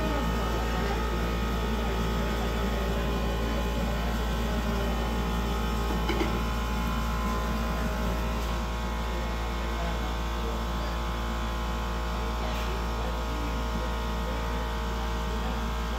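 Steady low roar and hum of glassblowing furnaces running, with faint background voices.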